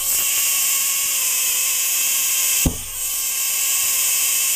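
Two aircraft jet-engine igniter plugs sparking nonstop from 12-volt high-voltage ignition modules: a loud, steady crackling buzz. A sharp pop comes about two and a half seconds in, as gas from a canister is lit by the sparks.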